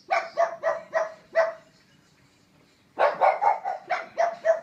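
Pug barking in rapid runs: about five quick barks in the first second and a half, a short pause, then another run of about seven barks near the end.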